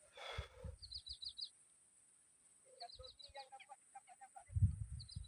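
Birds calling: quick runs of four or five high chirps repeating about every two seconds, with lower clucking notes in the middle. A short rustle at the very start and low rumbling near the end.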